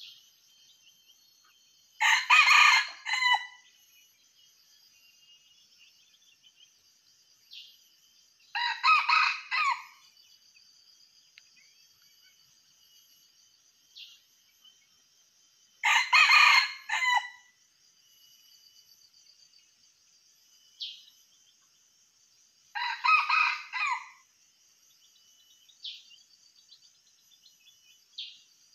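Red junglefowl rooster crowing four times, short crows roughly seven seconds apart, over a steady high buzz of insects.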